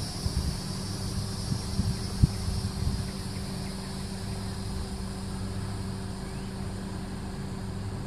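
Summer outdoor ambience: insects buzz steadily and high over a low, steady motor-like hum. Wind rumbles on the microphone in the first few seconds.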